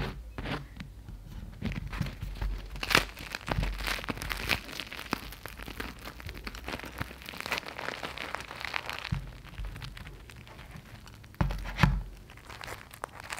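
A coffee bun being torn apart by hand: its crisp coffee topping crackles and the soft bread tears in a run of crackles and rustles. A dull knock comes near the end.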